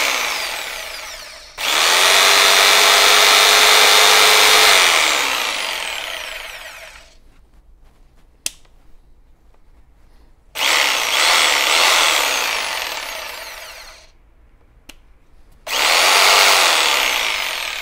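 Makita 4329 jigsaw running free in the air, not cutting, its motor and reciprocating blade triggered on in three runs of a few seconds each. Each run winds down with a falling whine after the trigger is released. A single click comes in one of the pauses.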